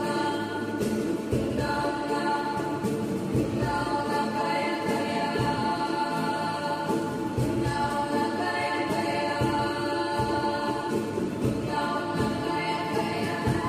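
Background music of slow, held chords that change every second or two.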